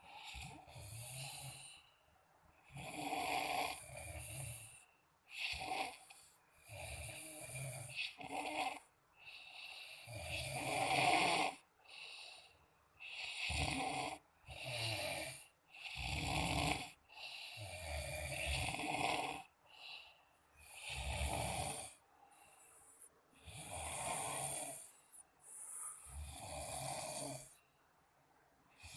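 Twin brothers snoring in their sleep: irregular snores of a second or so each, coming every second or two, some deeper than others.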